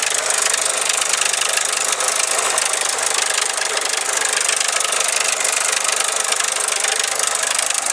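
Four-cylinder engine running with a steady, horrific metallic clatter, a noise that began after its timing chain and valve clearances were adjusted.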